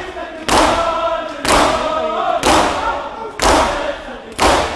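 A crowd of Shia mourners doing matam, striking their chests with their hands in unison about once a second, five strikes in all. Between the strikes many voices chant the noha together.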